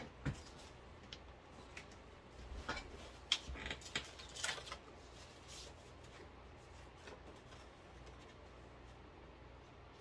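Gift packaging and paper being handled on a tabletop: a light knock just after the start, then scattered rustles and small clicks over the next few seconds, and quiet room tone for the rest.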